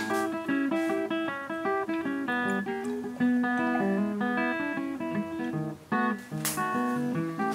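Background music of plucked acoustic guitar, a quick run of picked notes, with a short noisy accent near the end.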